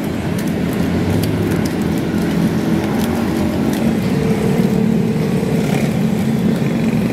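An engine running steadily: a low, even hum that holds without a break.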